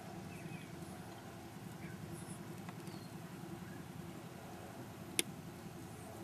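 Steady low outdoor background hum with a few faint high chirps, and one sharp click about five seconds in.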